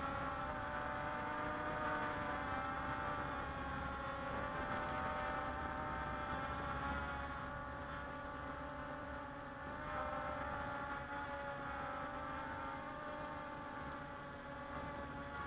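Walkera Scout X4 quadcopter's electric motors and propellers whining steadily in flight, close to the onboard camera's microphone, the pitch wavering gently up and down as the motors change speed.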